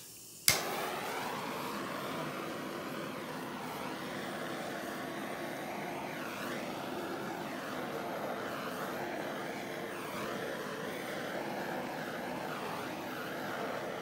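Handheld torch clicked alight about half a second in, then its flame hissing steadily as it is passed over wet acrylic pouring paint to pop air bubbles. The torch shuts off near the end.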